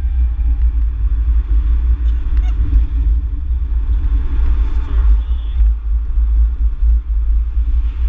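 Race car engine and road noise heard from inside the cabin while the car is driven around the track: a loud, steady low rumble.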